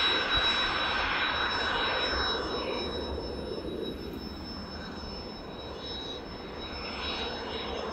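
Jet aircraft engine noise with a steady high whine, loudest at first and dying down after about two seconds into a fainter roar.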